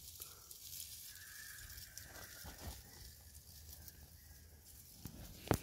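Quiet bush ambience heard from inside a canvas tent: faint rustling and a thin, steady high tone through the middle, then a single sharp click near the end.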